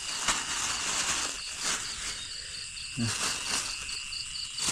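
Crickets and other insects chirping: a steady high trill with a second, pulsing chirp at about five beats a second. A few sharp clicks are scattered through it.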